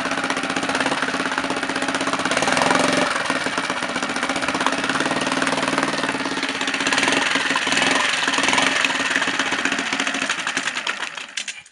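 Honda 5 HP single-cylinder four-stroke outboard running on a test barrel. Its sound swells and eases a couple of times. The engine cuts off suddenly just before the end, leaving only the trickle of water.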